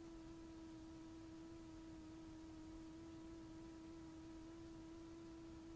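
A faint, steady, humming tone with a few fainter overtones, holding one pitch over a low hiss.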